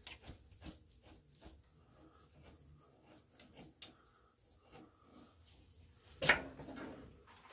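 Tailstock die holder being turned by hand and backed off a freshly threaded tool-steel rod: faint metal rubbing and small clicks, then one sudden louder knock about six seconds in.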